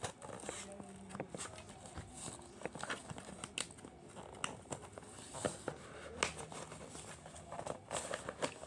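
Cardboard and packing material crinkling and tearing in irregular bursts as a shipping box is worked open by hand.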